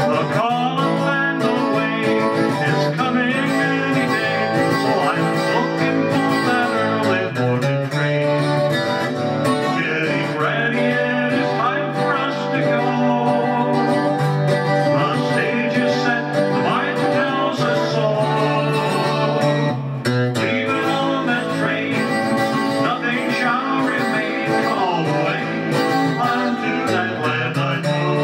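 Acoustic guitar strummed steadily through a song.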